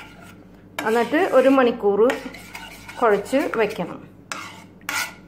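Metal spoon stirring thick white sauce in a stainless steel pan, scraping the bottom with squeaky strokes about a second and three seconds in, then a sharp clink of spoon on pan near the end.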